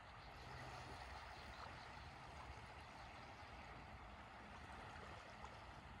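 Faint, steady wash of small ripples lapping at the edge of a calm sea on a sandy shore, with a soft low rumble beneath.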